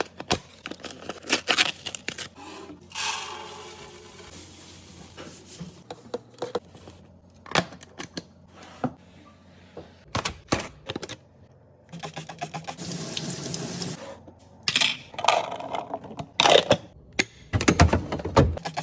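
Restocking sounds: packaged items and containers handled and set down in a string of sharp clicks and knocks. Two longer stretches of running water, about three seconds in and again about twelve seconds in.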